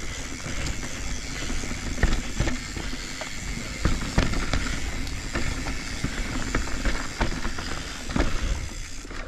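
Full-suspension Commencal mountain bike ridden over a rooty dirt trail. Tyres rumble over the ground, with many irregular sharp clicks and knocks as the bike rattles over roots.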